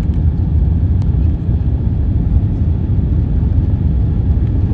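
Steady low rumble inside the passenger cabin of an Airbus A350-900, from its Rolls-Royce Trent XWB engines and the airframe, heard from a window seat.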